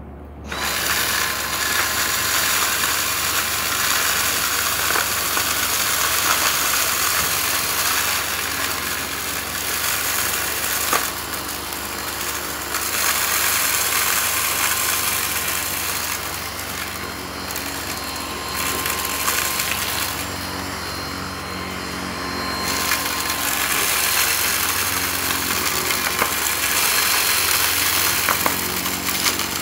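Dyson V6 cordless stick vacuum switching on about half a second in and running with a steady motor whine, its motorhead sucking up a carpet full of small plastic beads and shell fragments with continuous crunching and rattling of debris.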